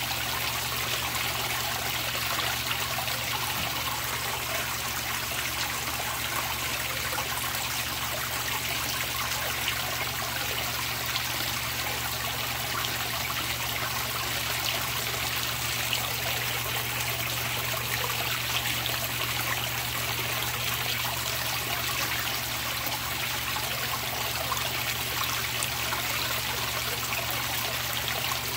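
Water pouring from a pipe into a koi pond, splashing steadily on the surface, with a steady low hum underneath.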